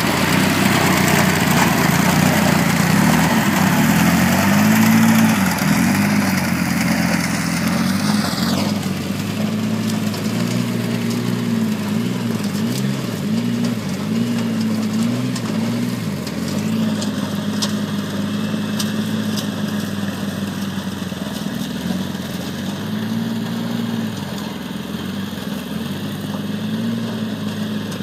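Engines of a Polaris RZR 800 side-by-side and the tow-behind rough-cut mower it pulls, running steadily under load while mowing a field, the engine note wavering up and down. A loud upper hiss over the engines drops away abruptly about eight seconds in.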